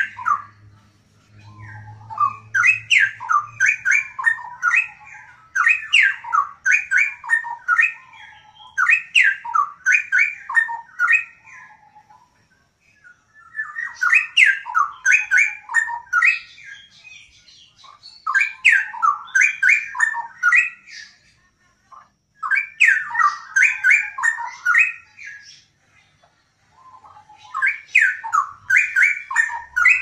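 Caged straw-headed bulbul (cucak rowo) singing loud, rich warbling phrases of gliding notes, each two to four seconds long, one after another with short pauses between.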